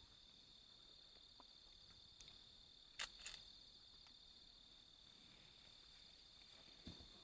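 Steady high-pitched trilling of a chorus of insects. Two short sharp clicks come about three seconds in.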